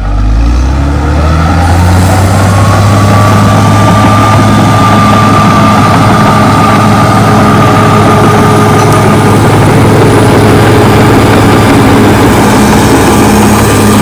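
Caterpillar D6R XL bulldozer's diesel engine revving up over the first couple of seconds, then running loud and steady under load as it works the dirt. A thin high whine rides over it for several seconds.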